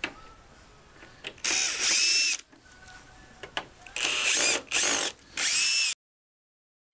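Cordless drill-driver running in four short bursts, one about a second long and then three quicker ones close together. Each starts with a rising whine as the motor spins up. It is working the screws that release the crib's top rail from its hinge.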